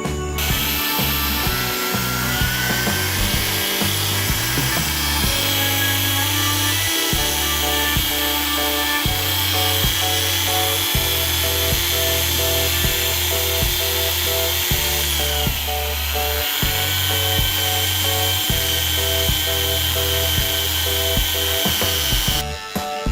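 Background music with a steady bass line over a small high-pitched motor whining steadily. The motor's pitch dips briefly and recovers about two-thirds of the way through, then it cuts off suddenly near the end.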